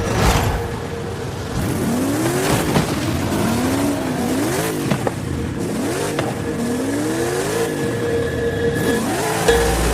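Ferrari sports car engine revving, its pitch climbing and dropping several times as it accelerates through the gears. Music with a beat comes in near the end.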